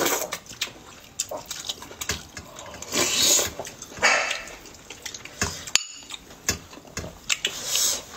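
Close-up eating sounds: chewing, lip smacks and slurps, with metal spoons clicking against bowls.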